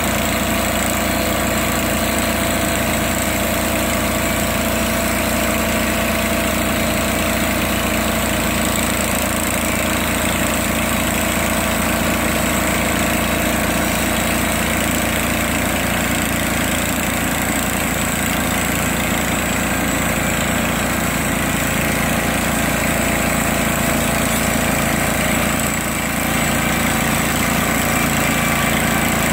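Norwood LumberPro HD36 portable sawmill's engine running steadily at a constant speed.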